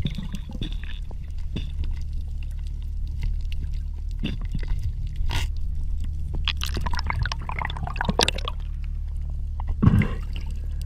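Underwater sound heard through a diver's camera: a steady low rumble of water, with scattered clicks and crackles. A denser patch of crackling comes in the middle, and a single thump is heard near the end.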